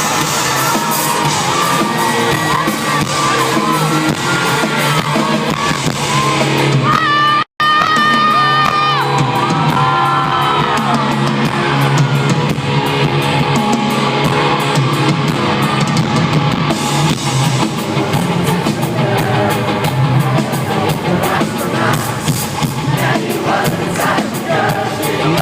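Rock band playing live, with a singer's voice over drums and instruments. The sound cuts out completely for an instant about seven seconds in.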